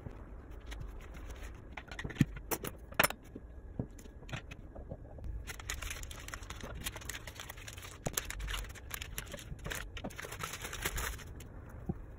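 Sharp taps and knocks of small objects set down on a wooden tabletop, the loudest two about a second apart. Then several seconds of crackly rustling from a thin plastic sheet being handled, which stops near the end.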